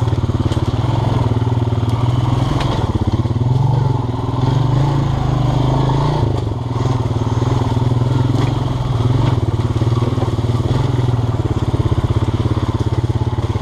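Four-wheeler (ATV) engine running steadily, its speed rising and dipping a little as it rides, with a few short knocks.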